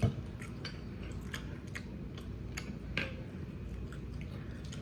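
A person chewing food close to the microphone: irregular wet clicks and smacks of the mouth, a few a second, with a louder knock right at the start and another about three seconds in.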